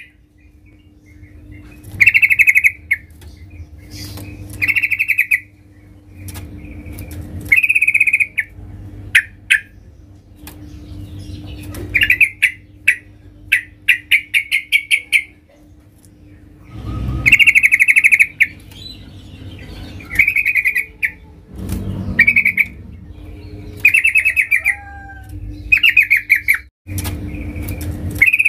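Yellow-vented bulbul singing: loud, short bursts of fast chattering notes, repeated about a dozen times with brief gaps. A steady low hum runs underneath, with a few dull thumps.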